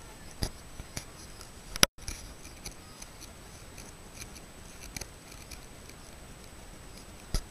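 Scattered sharp clicks and taps over a faint steady hiss and a thin high whine. The loudest click comes just before two seconds in, followed by a moment of total silence, and another loud click comes near the end.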